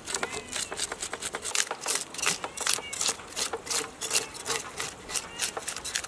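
A blade scraping scales off a whole Caspian white fish in quick repeated strokes, several a second, with scales flicking onto the metal tray.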